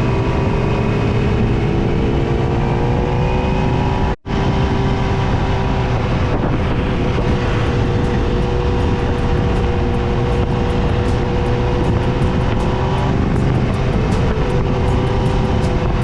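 Motorcycle engine running at a steady cruising speed, its pitch drifting slightly, over rushing wind and road noise. The sound drops out for a moment about four seconds in.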